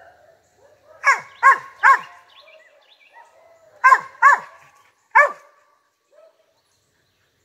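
Cur dog barking up a tree at a squirrel: six short barks in two groups of three, the first group about a second in and the second about four seconds in.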